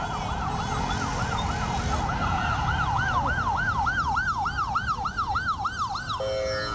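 Ambulance siren wailing in a fast yelp, rising and falling about three times a second, growing louder as the ambulance approaches. Just after six seconds it cuts off and gives way to a steady tone.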